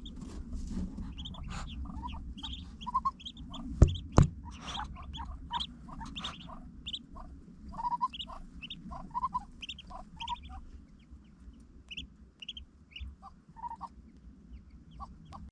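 Newly hatched ducklings peeping: many short, high, repeated chirps, thinning out toward the end. Two sharp knocks about four seconds in, over a low handling rumble.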